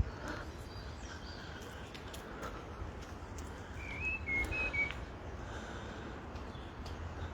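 A bird chirps a short run of a few high notes about four seconds in, over a steady low rumble of wind on the microphone.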